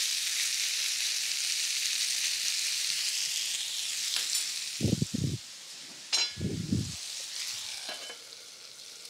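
Sliced red onion and red bell pepper sizzling in a sauté pan with a steady hiss, which dies down near the end as the pan is covered. A few dull knocks and a click come midway.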